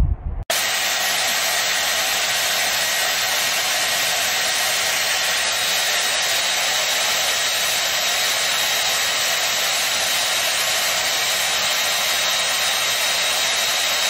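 Hand-held hair dryer running steadily: an even rushing blow with a faint high whine. It cuts in abruptly about half a second in, after a brief low rumble.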